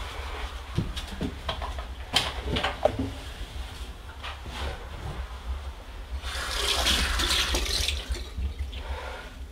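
Bathroom sink tap running for about two seconds, starting about six seconds in, after a few light knocks and clicks.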